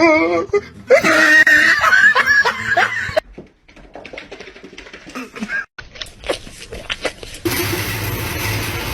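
A person laughing, with wavering pitch, for about the first three seconds. This is followed by quieter scattered clicks and knocks, and from about two-thirds of the way in, a steady noise with a low hum.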